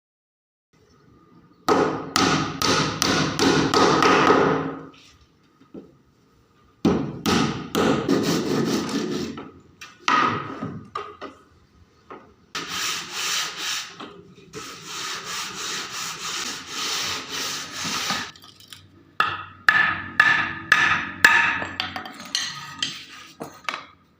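Hand tool rubbing and scraping on wood in repeated quick strokes, coming in several bursts of a few seconds with short pauses between them.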